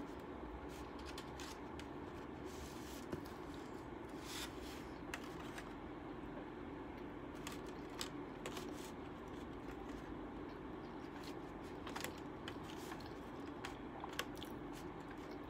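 Eating sounds: chewing and scattered small clicks as wooden chopsticks pick sushi rolls from a clear plastic tray, over a steady background hum.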